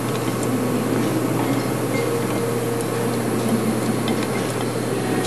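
Letterpress printing press running, its inked rollers and gears turning: a steady mechanical noise with a low hum and faint scattered ticks.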